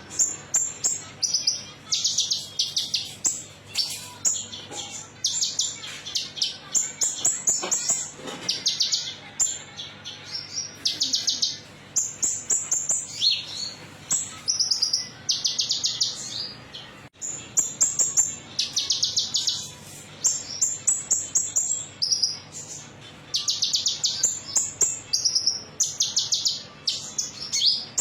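Konin songbird singing its metallic-sounding song: rapid, high-pitched trilling phrases of about a second each, repeated every second or two with short gaps. A faint steady low hum runs underneath.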